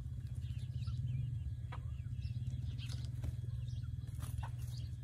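Scattered short bird chirps, likely from the chickens, over a steady low rumble.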